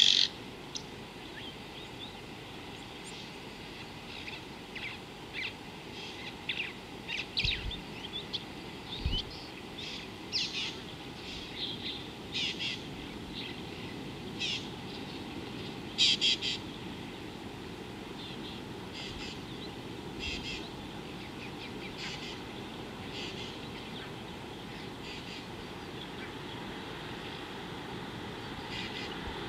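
Wild birds calling: many short, high chirps and calls scattered irregularly, thickest in the first half and thinning out towards the end, over a steady low background hiss.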